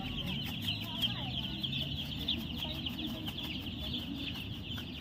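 A large flock of young chicks peeping all at once: a dense, continuous chorus of high, short chirps.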